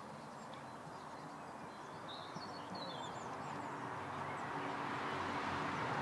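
A few short, high bird chirps around the middle, over a steady outdoor background hiss that slowly grows louder toward the end.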